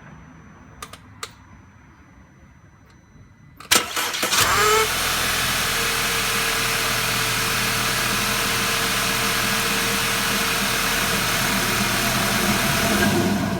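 Two light clicks, then about four seconds in the Audi A4 2.0T's turbocharged four-cylinder is cranked and starts with a brief rising whine. It settles into running with a loud, steady noise that fills both low and very high pitches: the loud noise from the front of the car.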